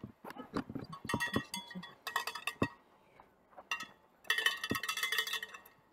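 Cowbells being shaken in rapid bursts of metallic clanging, several short bursts and then a longer one of about a second near the end.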